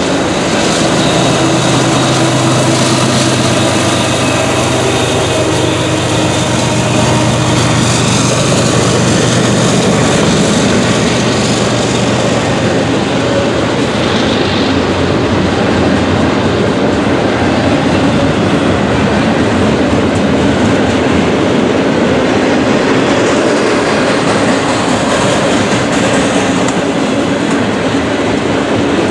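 Norfolk Southern freight train rolling past, its cars' wheels clattering over the rails in a loud, steady rumble. A low steady hum runs under it for the first ten seconds or so.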